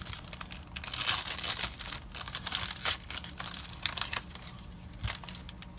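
Foil booster-pack wrapper crinkling and cards being handled, a dense run of crackly, papery clicks.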